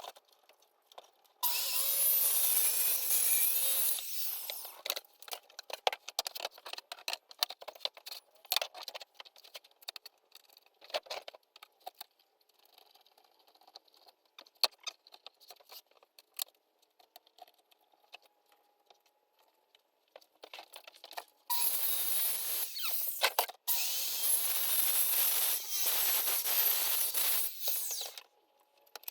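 A power tool working wood in two spells, a short one of about three seconds near the start and a longer one of about six seconds near the end. Scattered knocks and clicks of wood being handled fall between them.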